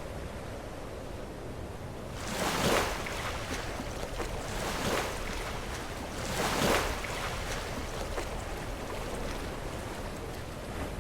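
Sea waves breaking against rocks over a steady low surf rumble. Three waves surge and wash out, about two seconds apart, in the first part of the stretch.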